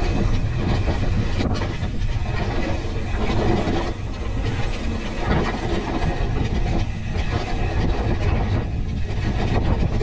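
Pivot Switchblade mountain bike being ridden fast down a rough dirt trail: tyres crunching over dirt and stones, with constant chain and frame rattle and a low rumble.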